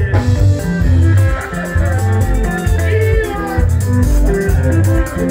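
Live sungura band playing: quick interlocking electric guitar lines over a heavy, pulsing bass and drum beat.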